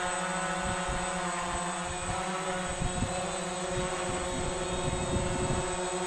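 Quadcopter drone hovering, its propellers giving a steady, multi-toned whine. Low buffeting gusts on the microphone come and go through the middle seconds.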